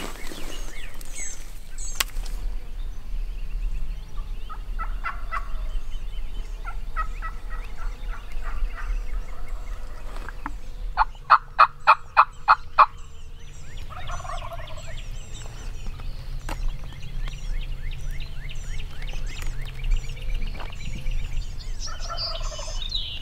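Turkey calling: a loud run of about eight evenly spaced yelps midway through, with fainter turkey calls before and after, over steady songbird chirping.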